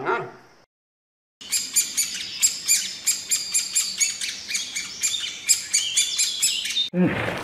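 Birds chirping: a dense run of many short, high calls repeating several times a second. It starts about a second and a half in and cuts off suddenly near the end.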